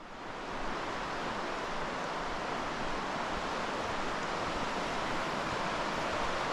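Waterfall roaring: a steady, full rushing of falling water that comes in suddenly at the start and holds steady.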